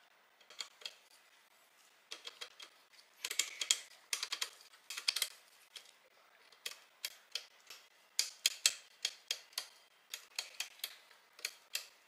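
Comandante C40 hand grinder's grind-adjustment wheel being turned click by click toward a finer setting of 20: sharp clicks in short runs with brief pauses between them.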